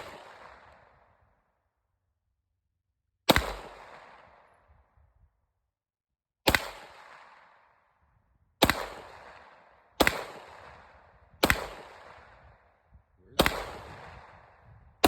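Firearm shots fired one at a time at a target, six in all at uneven gaps of one and a half to three seconds, each sharp crack followed by a fading echo.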